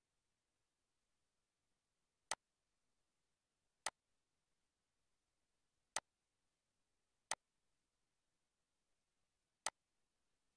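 Five sharp, single computer mouse button clicks, one to two and a half seconds apart, over near silence.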